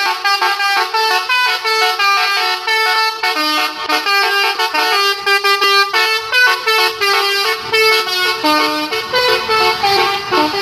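A bus's telolet horn, a multi-tone air horn, playing a quick tune of changing notes without a break. A low rumble joins in over the last few seconds.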